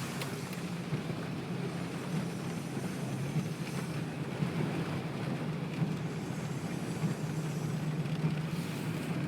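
Car driving through floodwater, heard from inside the closed cabin: a steady low engine and road hum under an even wash of water noise.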